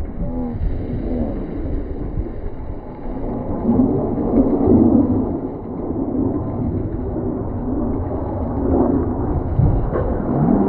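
Jet noise from the Red Arrows' BAE Hawk trainers, their Adour turbofans making a deep rolling rumble that swells about four seconds in and again near the end, with a falling whine near the start as a jet passes.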